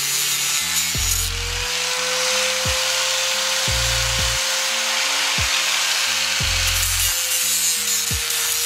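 Angle grinder running steadily with a constant whine, its abrasive disc grinding rust off the steel edge of an old window frame.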